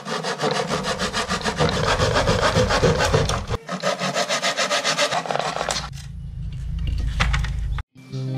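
Small hand saw with a thin blade cutting through plywood in rapid, even back-and-forth strokes. About six seconds in, the strokes thin out and grow quieter, and the sound cuts off suddenly just before the end.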